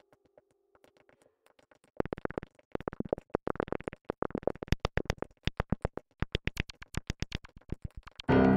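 Background electronic music. A held synth tone fades out, a rapid ticking percussion beat starts about two seconds in, and a loud chord comes in near the end.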